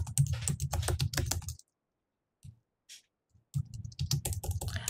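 Fast typing on a computer keyboard in two runs of rapid key presses, each about a second and a half long, separated by a pause with a couple of single key taps.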